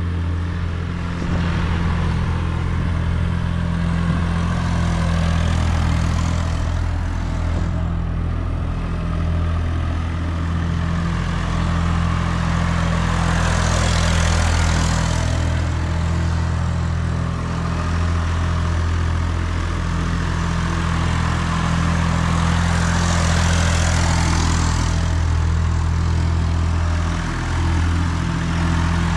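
Massey Ferguson 253 tractor's three-cylinder diesel engine running steadily as it drags a rear grading blade around in circles, louder twice as it swings past close by.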